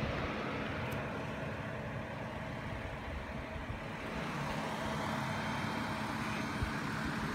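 Steady running noise of a car, an even rumble with a low hum throughout.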